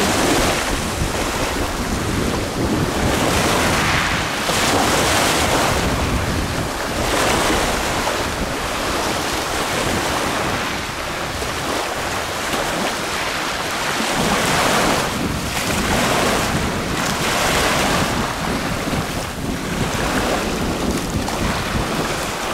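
Ocean surf washing in, rising and falling every couple of seconds, with wind buffeting the microphone.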